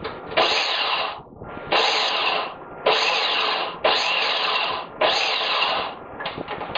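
Small food processor motor pulsed five times in bursts of about a second each, chopping and puréeing strawberries with a little liquid added.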